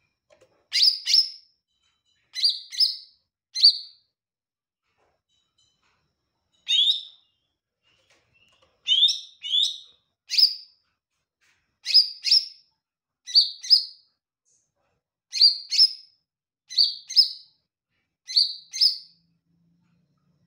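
Caged green leafbird (cucak ijo) calling in short, sharp, high chirps, mostly in quick pairs, repeated every second or two, with a pause of about three seconds a few seconds in.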